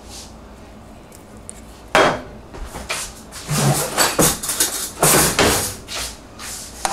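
Kitchen clatter of pots, dishes and utensils being handled: a sharp knock about two seconds in, then a run of clinks, rattles and scrapes.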